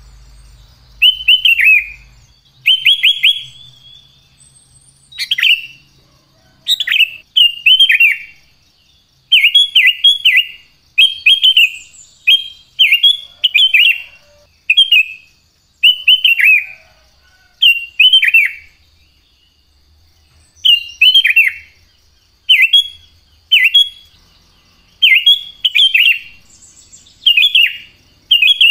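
Sooty-headed bulbul (kutilang) singing: short loud phrases of quick notes sliding down in pitch, repeated every second or two with brief pauses between them.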